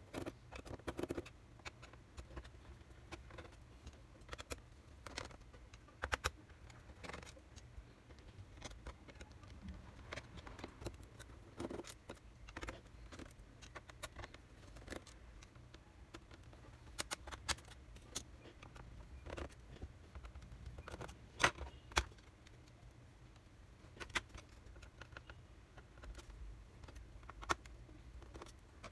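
Tools and small parts clicking and scraping against a Sony Vaio laptop's casing as it is taken apart: irregular light clicks and taps, a few sharper ones, over a low steady hum.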